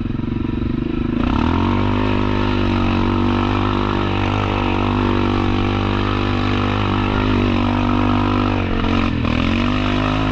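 Yamaha Kodiak 700 ATV's single-cylinder four-stroke engine under way: revs rise about a second in and it pulls steadily, easing off briefly near the end before picking up again.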